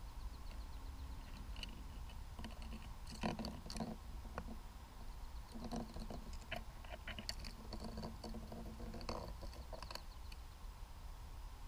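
Scattered light clicks, knocks and scrapes as a landing net's rim and mesh work over a hole in the ice and scoop up a floating sonar puck, the loudest knock about three seconds in. A low steady rumble runs underneath.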